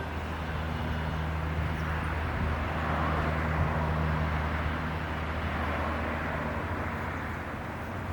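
Outdoor traffic noise. A steady low engine hum runs underneath, and a broader rush swells toward the middle and then fades, like a vehicle passing.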